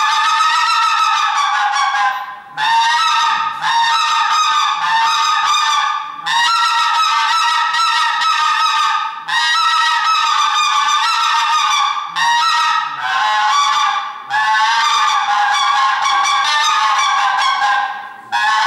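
Mouth-blown hunting game call (manok) played in a competition performance: long runs of pitched calling, broken by short breaks every two to four seconds.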